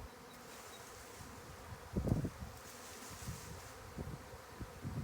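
A swarm of European honey bees buzzing steadily around the hive box. A low thump or rumble about two seconds in is the loudest sound, with a few fainter knocks.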